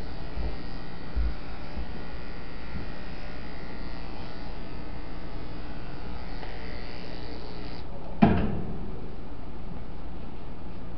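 Electric animal hair clippers running steadily, shaving fur off a dog's foreleg to prepare an IV catheter site. The buzz stops about eight seconds in, followed at once by a single sharp knock.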